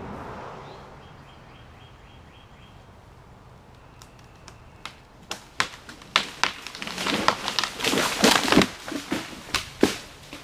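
A dead pine tree cracking and crashing down. Scattered sharp cracks start about four seconds in, build into a dense run of snapping wood and branches near the end, then a few last cracks.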